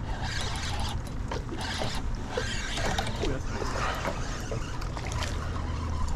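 Spinning reel being cranked as a hooked sheepshead is reeled up beside a small skiff, a mechanical whirring that comes and goes, over water lapping against the hull and a steady low wind rumble.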